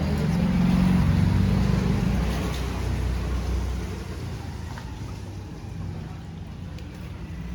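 A motor vehicle's engine running with a low, steady drone, loudest in the first two seconds and fading away after about four seconds.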